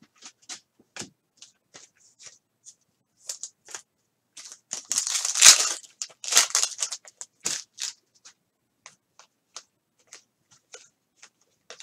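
Foil wrapper of a trading-card pack crinkling and tearing open, loudest about halfway through, with light clicks and rustles of handling before and after.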